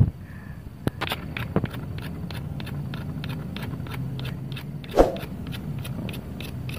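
Dry coconut husk fibres being picked and torn off a sprouted green coconut by hand: a quick run of crackling rips, with one sharper snap about five seconds in.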